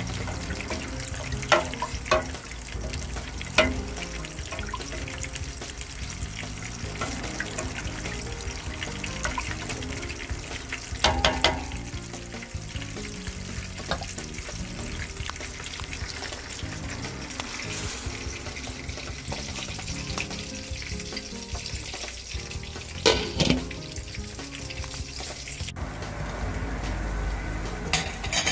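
Pot of vegetable soup broth simmering on the stove, a steady bubbling hiss with a few sharp clicks and knocks now and then.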